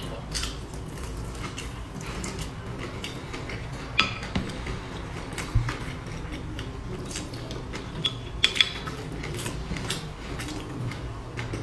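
Close-up eating sounds: a person chewing a sticky mouthful, with a handful of sharp clicks of chopsticks against a ceramic bowl and dish, the loudest about four seconds in.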